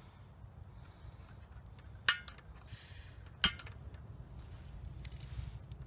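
Two sharp metallic clinks about a second and a half apart from a metal camping cooker pot (kocher) being handled as rice is set up to cook.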